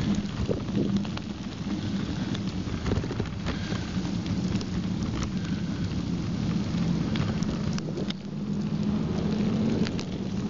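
Wind rumbling on the microphone over the steady noise of a mountain bike's tyres rolling on packed snow and ice, with scattered small clicks and rattles.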